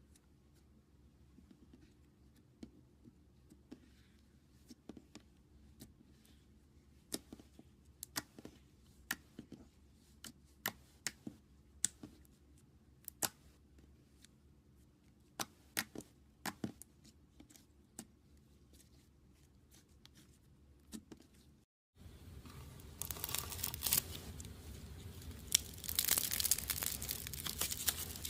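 Slime being squeezed and pressed by hand: scattered sharp pops and clicks, a few each second at the busiest. After a brief cut near the end, a louder continuous crinkly crackling takes over.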